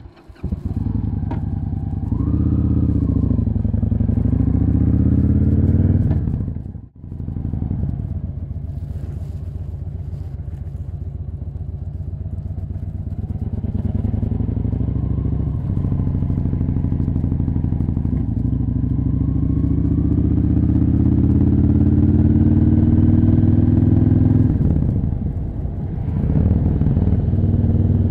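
Victory Hammer motorcycle's V-twin engine running on the road, its pitch climbing steadily as the bike accelerates. There is a short break about seven seconds in and a brief dip near the end, where the revs fall and build again.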